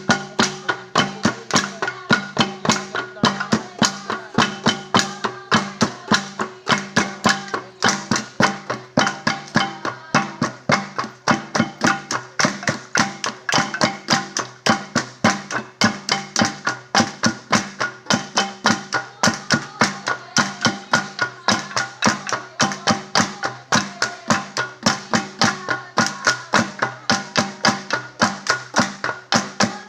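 Ifugao gong music: flat bronze gongs struck in a fast, even rhythm of about three to four beats a second, their ringing tones sustained beneath the beats.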